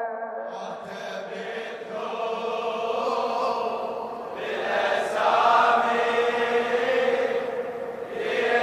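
A chorus of voices chanting a melody in a Shia latmiyya-style nasheed, with no distinct lead lyric. The voices swell louder about halfway through.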